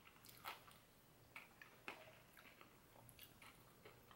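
Near silence with a few faint, short crackles and ticks: fried chicken being pulled apart by hand over its paper wrapper.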